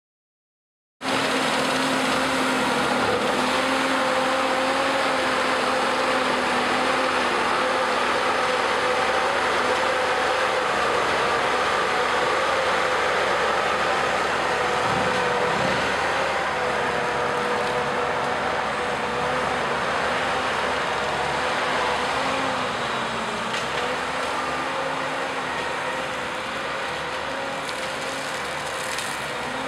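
Compact track loader running at high revs with a hydraulic brush cutter attachment spinning as it cuts through brush, a steady drone of engine and cutter. It starts about a second in and grows slightly quieter near the end as the machine moves away.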